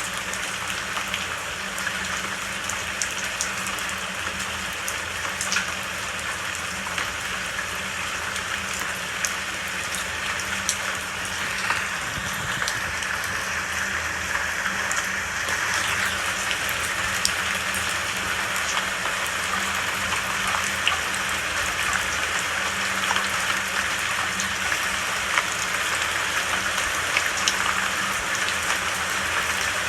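Steady rain falling, with many scattered single drops ticking on a surface; it grows slightly heavier about halfway through.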